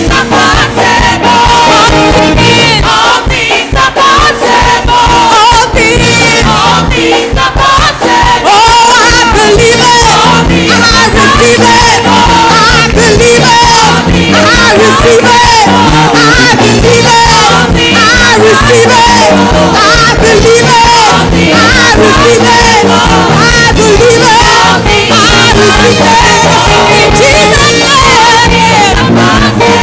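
Church congregation singing a gospel praise chorus together over upbeat music with a steady beat, loud and continuous.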